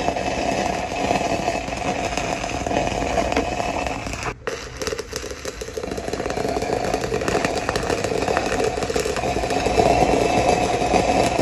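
Stick-welding arc of an E6010 3/32-inch electrode at about 70 amps, crackling steadily while laying a root pass on steel pipe. The arc drops out briefly about four seconds in, then picks up again.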